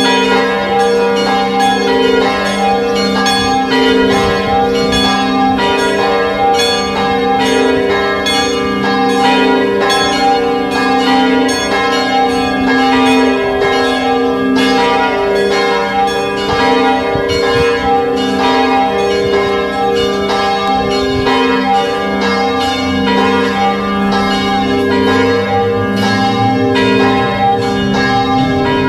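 Several church bells ringing together in a continuous peal, their strikes overlapping several times a second with a long ringing hum between. A deeper low hum comes in near the end.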